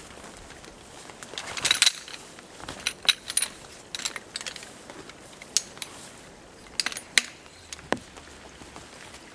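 Gear being handled by hand: a rustle with light clinks about two seconds in, then scattered sharp metallic clicks and clinks.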